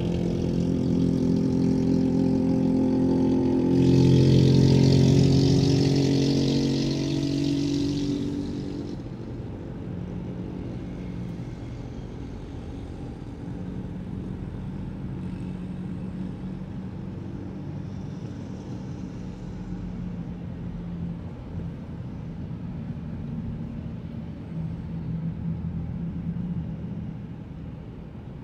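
Road traffic and vehicle engines on a busy city road. A nearby engine with a rushing hiss is loudest over the first eight seconds or so, then fades to a quieter, steady engine hum.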